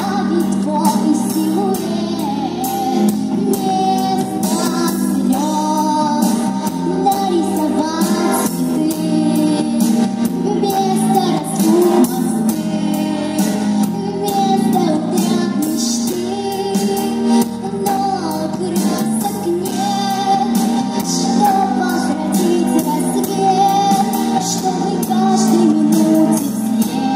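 Young girl singing a song into a microphone over instrumental backing music with a steady beat, played through the stage loudspeakers.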